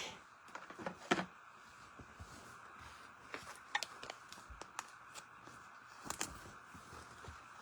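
Trading cards and foil pack wrappers being handled: scattered short clicks, slides and rustles, the sharpest about a second in, over a faint steady hum.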